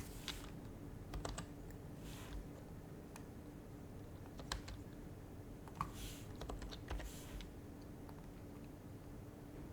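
Happy Hacking Keyboard Professional HYBRID Type-S being typed on sparsely, its damped Topre keys giving soft, muffled keystrokes: a few single presses in the first half, then a short flurry a little past the middle.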